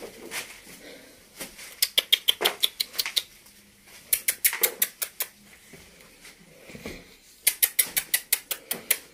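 Quick runs of lip-smacking kissing sounds, made to call hidden puppies out. There are three bursts of rapid smacks, each about a second long.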